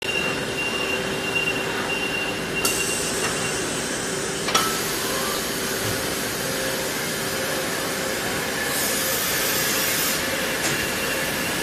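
Steady din of a brake disc machining line, with CNC lathes and an industrial robot arm running, under a constant hum and a high whine. There is a sharp click about four and a half seconds in, and a stronger hiss for about a second near the nine-second mark.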